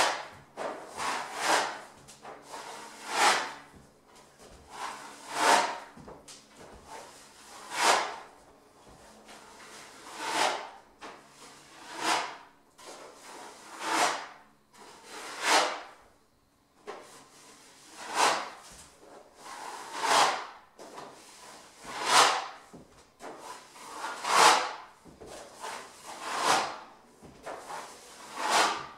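Broad drywall knife scraping across a spattered drywall texture, knocking down the raised joint-compound splatter. The strokes repeat about every one to two seconds, each a short scrape.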